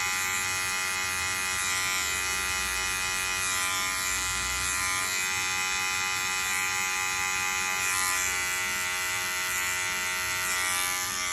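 Wahl electric hair clipper running with a steady hum, its blade cutting close into short hair to blend a fade.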